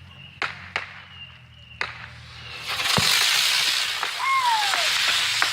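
A few sharp clicks, then about two and a half seconds in a ground firework fountain goes off with a loud, steady hiss of spraying sparks.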